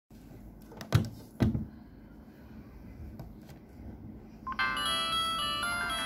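Two sharp clicks, then, about four and a half seconds in, a Samsung SGH-X450 flip phone plays its power-on melody through its small speaker: a chiming polyphonic tune of many short clear notes.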